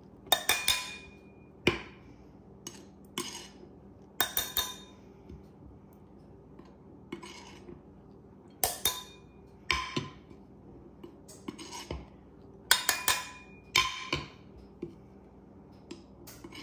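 Measuring cup scooping flour and tipping it into a glass mixing bowl, clinking and tapping against the bowl and the flour container. The sharp taps come in small clusters every second or two, and some ring briefly.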